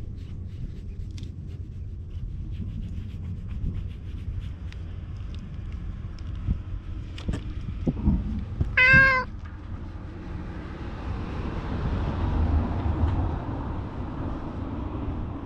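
A tabby stray cat gives one short, loud meow about nine seconds in. Low rubbing and handling noise runs throughout as the cat pushes its face against the camera while being petted.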